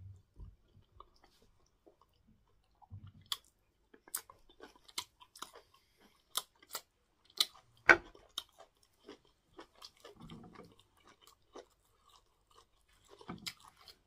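Close mouth sounds of a person chewing cocoyam fufu with bitter leaf soup: a quick run of wet clicks and smacks from about three seconds in, with one sharp, louder click a little past halfway, and a few more near the end.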